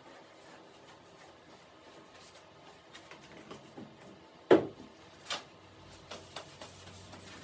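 Workbench handling sounds: one sharp knock about halfway through, a lighter one just after, then soft clicks and paper rustling as a sheet is handled.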